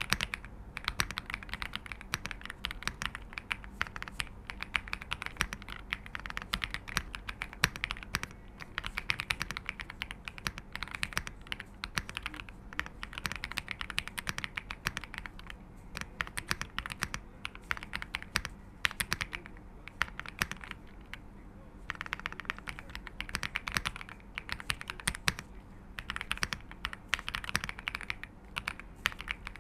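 Rapid typing on a Royal Kludge R75 mechanical keyboard with linear Silver switches: a dense stream of keystrokes with a few short pauses, the sound more of a thock than a clack and not very noisy.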